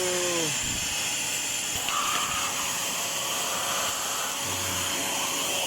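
Fujihama 3-in-1 1200 W wet-and-dry vacuum cleaner running during its first try: a steady hiss of rushing air with a steady motor tone under it.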